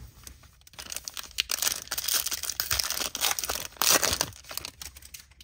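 A foil-wrapped trading-card pack being torn open and crinkled by hand: a dense crackle of rustling foil, loudest about four seconds in, then dying away.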